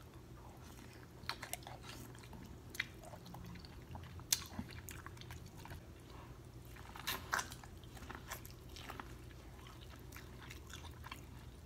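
Faint, close-miked eating sounds: chewing a green-lipped mussel, then biting into corn on the cob. Scattered sharp clicks and smacks run through it, the clearest about four seconds in and around seven seconds in.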